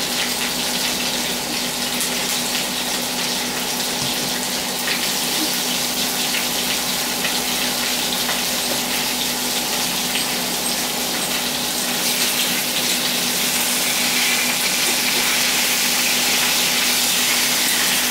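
Steaks frying in oil in a stainless-steel pan, a steady sizzling hiss that grows a little louder in the last few seconds.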